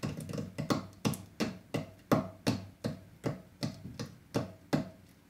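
An even run of sharp taps or knocks, about three a second and a dozen or so in all, stopping shortly before the end: a hand tapping on a hard surface.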